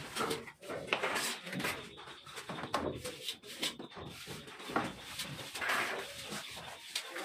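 A plastering trowel scraping and patting sand-cement mortar onto a concrete beam, in irregular strokes with small knocks.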